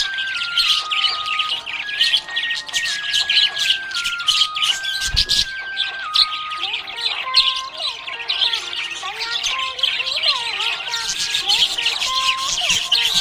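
Budgerigars chirping and chattering without pause, many fast high chirps overlapping, with a brief low thump about five seconds in.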